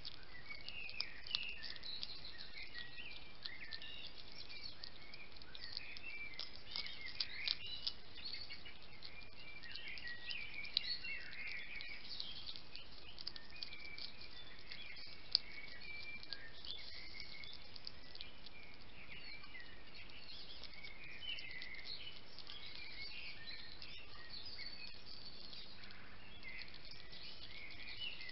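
European hedgehog eating from a ceramic dish right at the microphone: a continuous run of quick, squeaky wet smacking and chewing, with a few sharper clicks as it crunches food against the dish.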